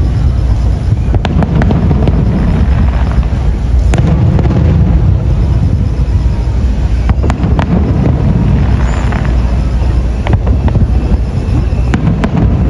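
Aerial firework shells bursting in a continuous barrage: a steady low rumble of booms with sharp cracks every second or two.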